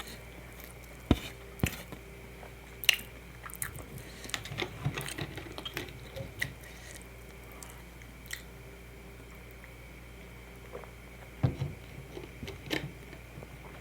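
Close-miked eating: chewing with wet mouth clicks and soft squishing, coming in scattered bursts with a lull of a few seconds in the middle.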